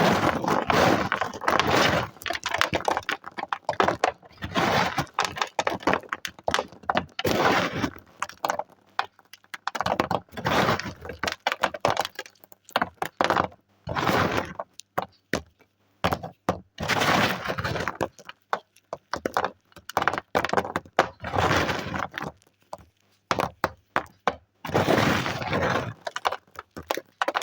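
Chalk pencils being snapped and crumbled by hand in repeated bouts of dense crackling and cracking, each lasting a second or two, with short pauses between them.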